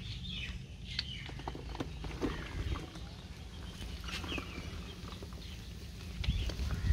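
Soil being tossed by hand into the hollow of a mud stove, heard as scattered soft knocks and pattering. A few faint bird calls come through, and heavier low thumps begin near the end.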